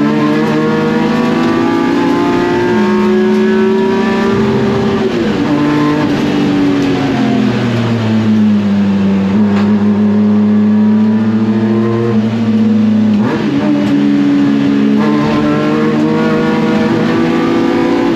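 Race car's engine, likely the S54-swapped BMW E36's straight-six, running hard on track. Its note climbs, drops suddenly at a gear change about five seconds in, sinks and holds steady for a while, then jumps up again about thirteen seconds in.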